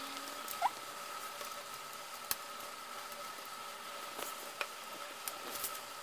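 Plastic LEGO bricks clicking and tapping as they are handled and pressed together by hand: a handful of sharp, separate clicks, with a brief squeak near the start, over a faint steady hum.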